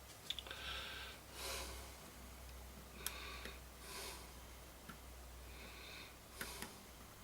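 Faint breathing and sniffing close to the microphone, a breath every second or two, with a few small clicks of handling and a low steady hum underneath.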